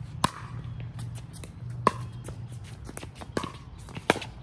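Pickleball rally: paddles hitting a hollow plastic pickleball, four sharp pocks, the last two closer together, with fainter clicks between.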